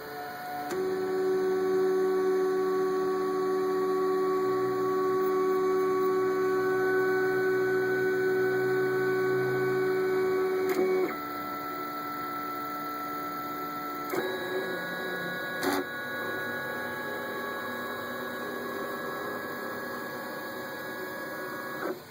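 A steady electrical buzz made of several fixed tones. It is loudest at first, then drops and shifts in pitch about eleven seconds in, shifts again about three seconds later with a click, and cuts off near the end.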